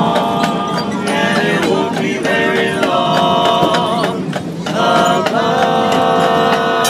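Barbershop quartet of male voices singing a cappella in close harmony, holding long sustained chords between short breaks.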